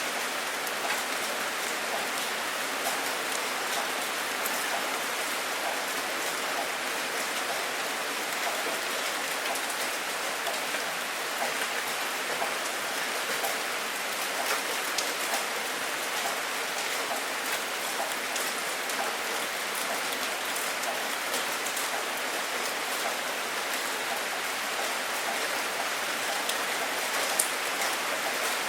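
Steady rain falling, an even hiss with many small, scattered drop ticks on a surface.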